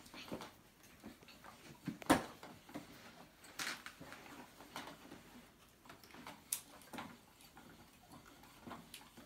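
Irregular light clicks and taps of a wooden toy hand mixer being worked in a plastic bowl, with a few sharper knocks among them.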